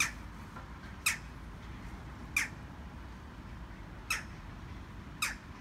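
A bird giving short, sharp, high calls, five of them about a second apart.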